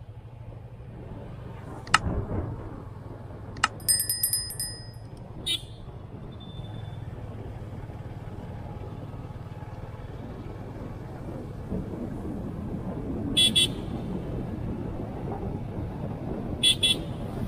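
Motorcycle engine running steadily under way, a constant low hum, with road and wind noise. Scattered clicks and short high-pitched ringing sounds cut in, including two quick pairs near the end.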